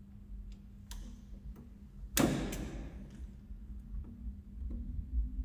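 Scattered light clicks and knocks from copper cable cores being handled and fitted into the terminals of an isolator switch in a metal enclosure, with one louder knock about two seconds in. A steady low hum runs underneath.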